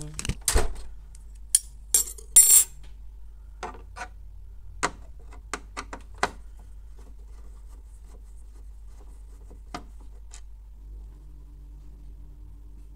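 Screwdriver clicking and clinking as it is picked up and worked on the screws of a Canon MF216n printer's plastic rear cover. Several sharp clicks come close together in the first three seconds, then scattered lighter ticks. A faint low hum starts near the end.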